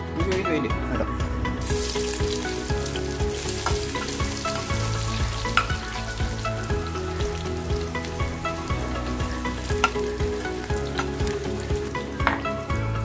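Thin onion slices frying in hot oil in an aluminium kadai: a steady sizzle that starts about a second and a half in, with a few sharp pops.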